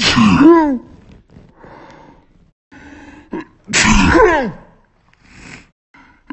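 A woman sneezing twice, about three and a half seconds apart. Each sneeze is a loud voiced burst that falls in pitch, with quieter breathing in between.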